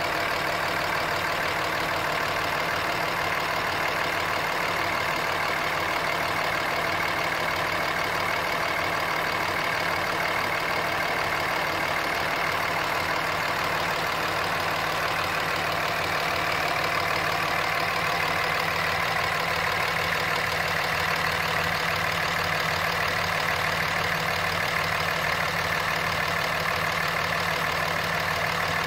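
Cummins 5.9L 24-valve inline-six turbo diesel in a 2005 Ram, fitted with a Fluidampr viscous crankshaft damper, idling steadily.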